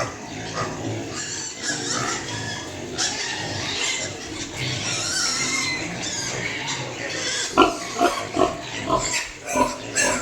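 A group of piglets squealing together in a continuous high-pitched jumble. Late on it gives way to a run of short, sharp calls, about three a second.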